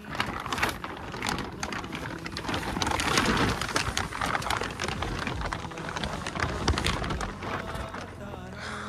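Heavy rain falling, a dense hiss with many separate drop impacts; it starts abruptly and is loudest about a third of the way in.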